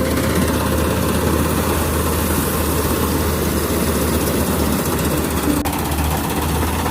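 Kubota rice combine harvester's engine running steadily with a low, even hum and mechanical clatter.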